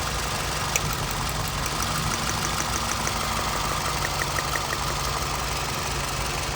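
2007 Scion tC's 2.4-litre four-cylinder engine idling steadily, with a short run of faint, even ticks, about five or six a second, twice along the way: the newly replaced ignition coil snapping its spark, showing that the cylinder that was misfiring now fires.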